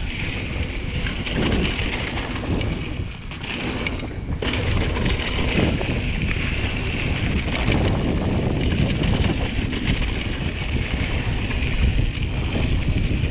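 Wind buffeting the GoPro Hero 7 Black's microphone as a mountain bike rolls fast down a dry dirt trail. Underneath are the rumble of tyres on dirt and small rattles and ticks from the bike.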